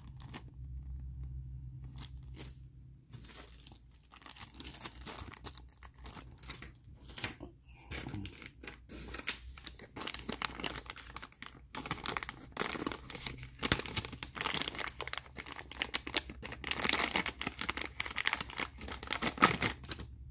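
Thin clear plastic bag crinkling and being torn open by hand, in irregular crackles that grow busier in the second half.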